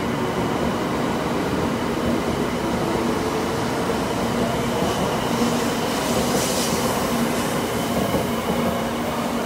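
A 700 series Rail Star Shinkansen train running past the platform: a steady rumble of wheels and running gear with a low hum, and a brief hiss about six and a half seconds in.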